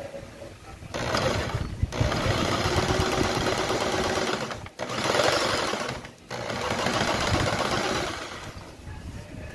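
Bosch GST 700 jigsaw with a T101AO curve blade cutting plywood, starting about a second in and running in stretches with brief stops between them, then trailing off near the end.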